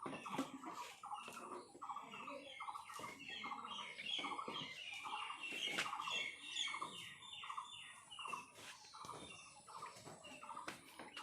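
Farm animals calling: many short, pulsed calls repeating a few times a second, thinning near the end, with a few sharp knocks among them.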